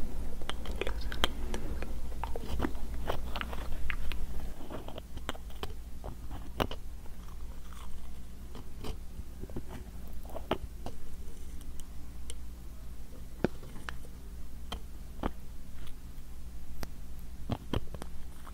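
A small plastic-capped glass dropper bottle handled close to the microphone, making irregular crisp clicks and taps, dense in the first few seconds and sparser after.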